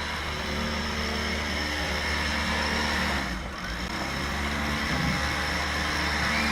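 A motor vehicle engine idling steadily, with a short dip in level a little past halfway.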